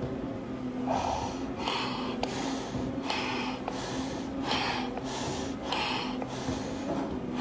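A firefighter breathing fast and hard through an SCBA facepiece, each breath a short rasping hiss of air through the mask and regulator, in a steady rhythm of about one every half-second to a second.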